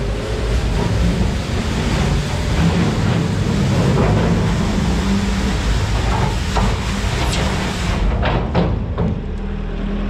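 An engine running steadily, with a loud hiss over it that stops about eight seconds in.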